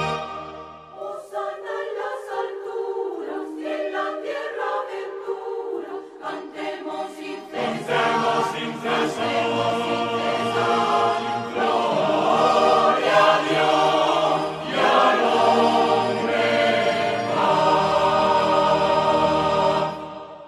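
Mixed choir singing a Christmas carol (villancico): only the higher voices at first, then the low voices join about seven seconds in and the full choir carries on, ending on a chord that dies away near the end.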